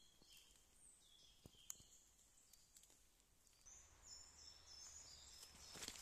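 Faint outdoor quiet with scattered short, high bird chirps. About four seconds in, a low rumble joins, and near the end a few crackling clicks start.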